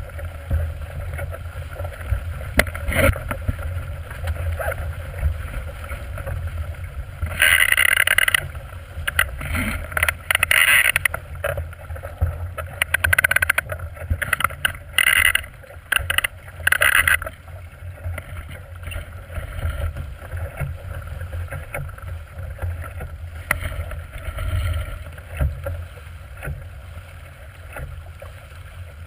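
Water rushing and splashing along the hull of a small plywood sailboat sailing fast in chop, over a steady low rumble of wind on the microphone. Loud irregular bursts of splashing come in the middle stretch.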